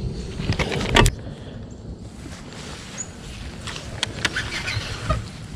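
Plastic bag of soft-plastic craw baits crinkling as it is handled, loudest about a second in, then a few small clicks from a baitcasting reel being handled, over a steady low rumble.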